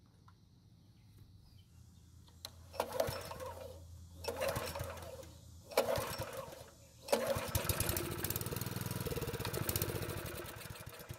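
Honda small engine on a pressure washer being pull-started with its recoil rope: three pulls, then it catches about seven seconds in and runs for a few seconds, fading near the end. It is a test start running on gasoline poured into the carburetor throat.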